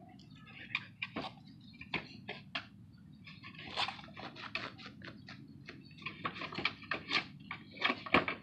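Husky's claws scratching and clicking on the boards of a wooden pallet as it paws at a ball stuck underneath, with irregular sharp knocks throughout.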